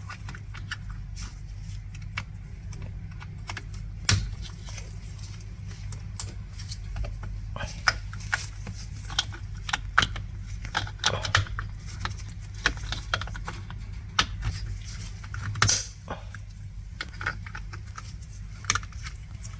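Scattered light clicks, taps and rattles of small plastic and metal parts being handled and fitted on a steering column as the steering angle sensor is put back, over a steady low hum.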